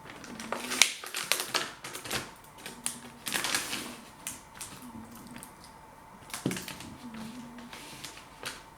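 Clicks, taps and a short scrape of a food container of baby beetroot being opened and handled, as it is opened and a beetroot is picked out.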